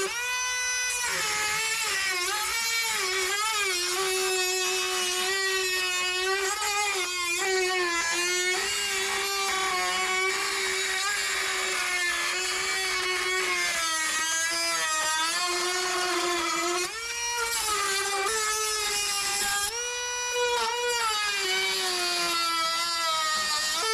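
Small high-speed handheld power tool motor whining continuously. Its pitch sags when it is loaded against the work and rises briefly when it runs free, about a second in and again about 20 seconds in.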